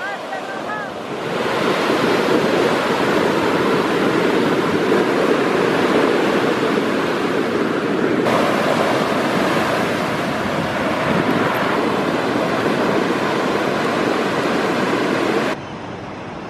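Ocean surf breaking and washing up the sand: a loud, steady rush of waves that swells up about a second in and cuts off abruptly near the end.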